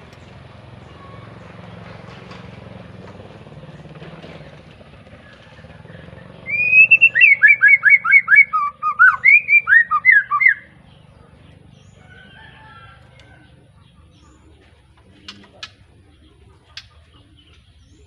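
A young white-rumped shama, just moulted out of its spotted juvenile plumage, sings a loud burst of about fifteen quick notes, each sweeping downward, lasting about four seconds from about six seconds in. A few faint calls and sharp clicks follow.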